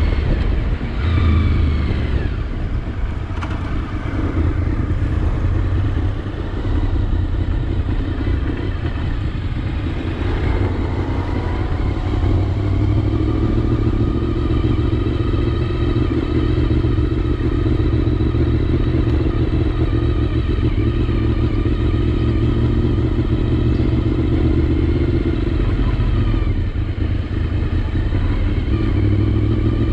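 Honda VFR750's V4 engine running under way on the road. The revs rise and fall a few times in the first part, then it holds a steady cruise.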